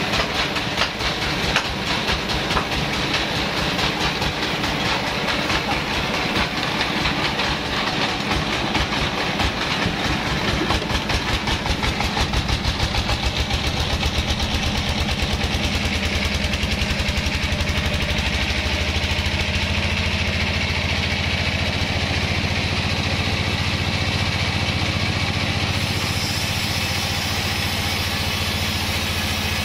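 Engine of a band sawmill running, with a fast even chugging that settles into a steady hum about halfway through.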